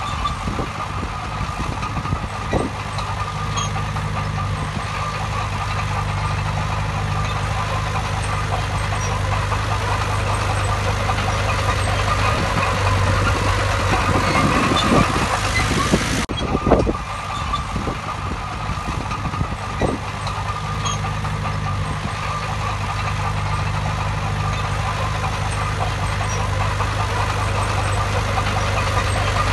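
Diesel engine of heavy earthmoving machinery running steadily, with a few short knocks. About halfway through the sound cuts off for an instant and carries on.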